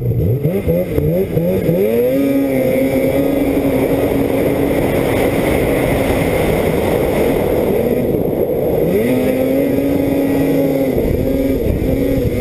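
2013 Polaris Assault 800 snowmobile's 800 cc two-stroke twin running hard under throttle: the revs climb over the first couple of seconds and hold high, ease off about six seconds in, then climb again about nine seconds in and hold.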